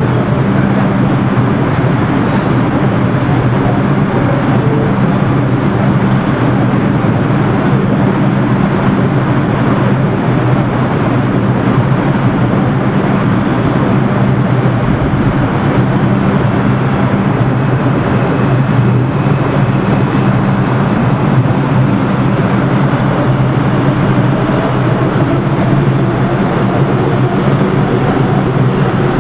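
R142 subway train standing in the station with a steady low hum and rumble, then starting to pull out near the end, a faint rising motor whine coming in.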